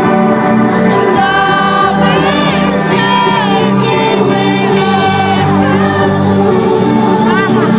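Trance track with steady sustained synth chords, and a sung vocal line that comes in about a second in.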